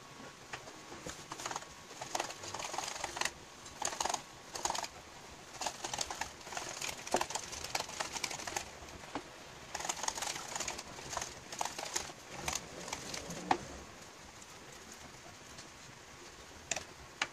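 Wire balloon whisk beating thick chocolate buttercream by hand, its wires clicking and scraping against the bowl in quick, irregular strokes; the whisking eases off about 14 seconds in.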